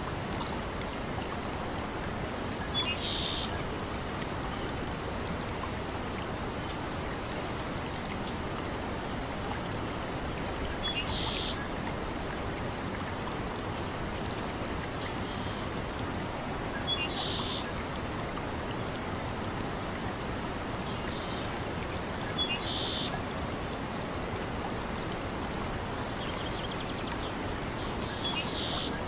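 Steady flowing water, as of a stream, in a nature ambience track. A short high chirp repeats about every five to six seconds over it.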